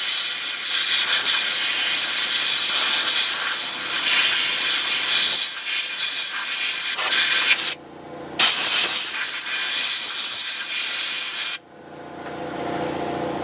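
Compressed air from an air nozzle hissing into an Edelbrock four-barrel carburetor to blow water and dirt out of it. There is one long blast of about eight seconds, a brief break, then a second blast of about three seconds. A lower steady hum follows near the end.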